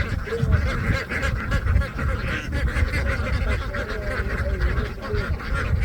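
A large flock of ducks quacking continuously, many overlapping calls making a dense chatter, over a steady low rumble.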